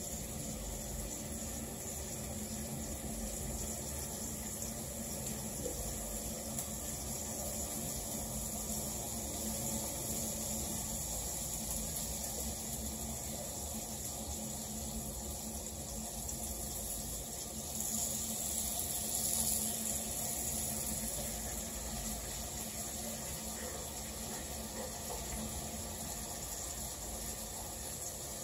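Steady sizzling hiss of food frying in a pan on the stove, over a steady low hum. The hiss swells briefly about two-thirds of the way through.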